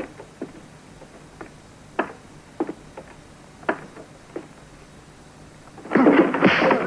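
Slow, irregular boot footsteps on a wooden floor, then at about six seconds a crowd of men suddenly starts shouting and cheering loudly.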